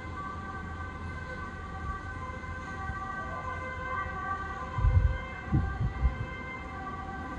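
Emergency vehicle sirens sounding as steady, sustained tones. A few low thumps about five to six seconds in.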